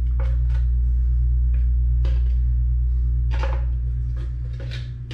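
A steady low hum with a few light clicks and knocks scattered through it from handling and fitting a transfer case pump housing.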